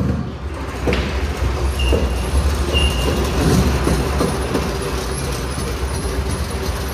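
Stripped car shell being pushed across a concrete floor on a wooden wheeled dolly and a tire, giving a continuous rolling rumble with scattered knocks and two short high squeaks about two and three seconds in.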